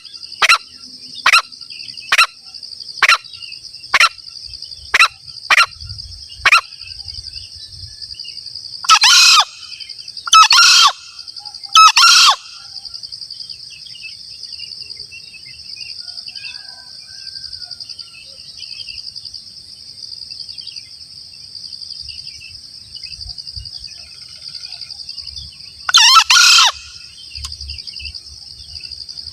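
Green junglefowl calling: a run of short sharp calls about once a second, then three louder, longer crows close together and a single crow near the end. A steady high-pitched insect drone runs underneath throughout.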